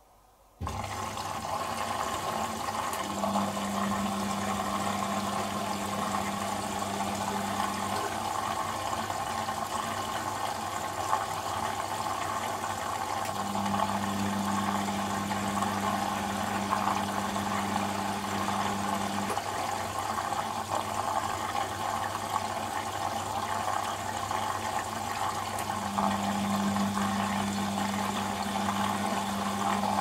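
Bosch Maxx 5 front-loading washing machine running mid-cycle: water rushing and a steady low hum start abruptly about half a second in. A motor whine comes and goes three times, several seconds each, as the drum tumbles the laundry.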